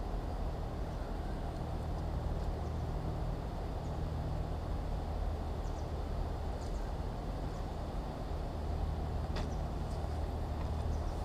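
Steady low rumble of distant road traffic, with a few faint, brief clicks about two-thirds and most of the way through.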